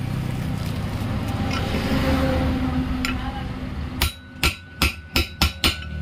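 A hammer driving a new ball bearing into the hub of a ceiling fan's end shield: a quick run of about seven sharp strikes in the last two seconds, over a steady low hum.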